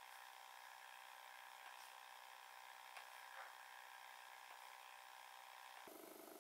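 Near silence: a faint steady electrical hum of room tone, with a few faint ticks.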